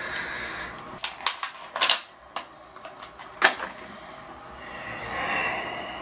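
Gloved hands handling shower-valve parts at the valve body: four or five sharp clicks and knocks in the first half, the loudest about three and a half seconds in, then a soft rubbing near the end.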